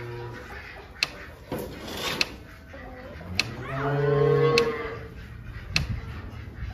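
A cow moos once, a drawn-out call about four seconds in.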